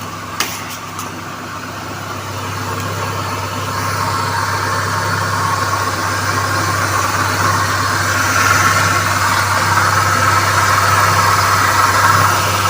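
Car engine idling at about 1000 RPM, with a rough, ugly whirring noise from the accessory belt drive that grows louder over the first few seconds, then holds steady. The noise comes from a worn bearing in one of the belt's pulleys.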